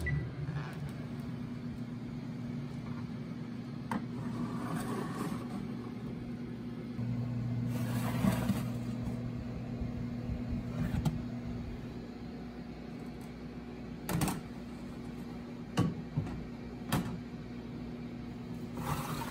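Countertop combination microwave oven humming steadily after baking, as its door is opened and the hot tray of cookies is handled with a cloth: a few scrapes and several sharp clicks and clunks, mostly in the second half.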